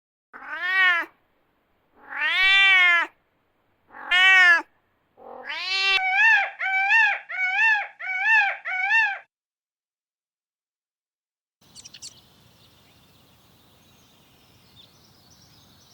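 Domestic cat meowing: three separate drawn-out meows, then a quick run of about seven shorter, higher meows, about two a second, which stops about nine seconds in.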